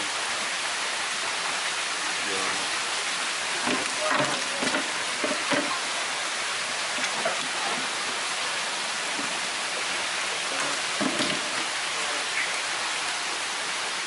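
Steady hiss of running water, with faint voices now and then.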